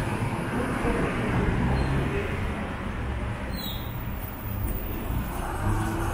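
City street ambience dominated by the steady noise of motor traffic on the road.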